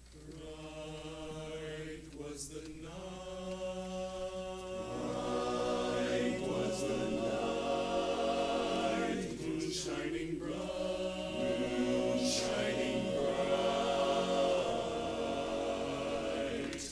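Barbershop chorus singing a cappella, holding sustained chords in close harmony with no clear words. It swells from soft to loud over the first several seconds.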